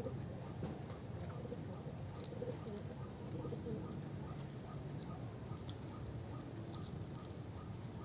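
Birds calling in the surrounding vegetation: a faint high chirp repeated evenly about three times a second, with a few lower calls in the first half, over a steady low outdoor background.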